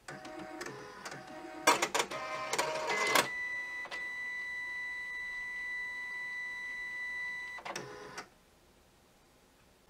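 HID Fargo DTC4250e ID card printer running its start-up routine after being switched on: motors whir at changing pitch with several sharp clacks for the first three seconds, then a steady high whine for about four and a half seconds, a short final whir, and it stops about eight seconds in.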